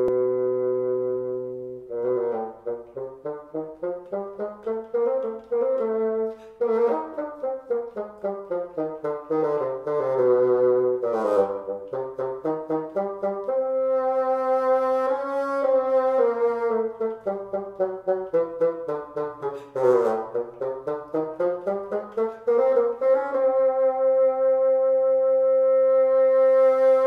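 Ensemble music for several bassoons: held chords that break into fast rising and falling runs of notes, then settle into a long held chord near the end.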